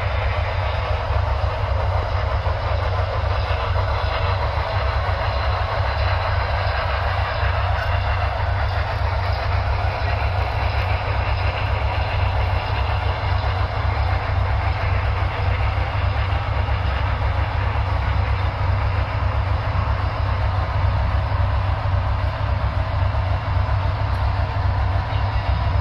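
HO scale model trains running on the layout's track: a steady low rumble with an even rolling whir of small wheels and motors above it, unchanging throughout.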